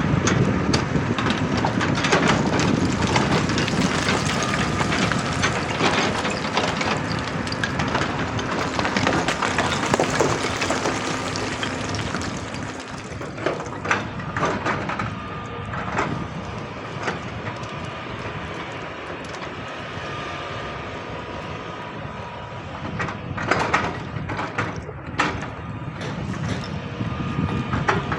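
Excavator at work: its engine running with a dense run of knocks and scraping for the first dozen seconds or so. After that it is quieter, a steady engine hum broken by occasional knocks.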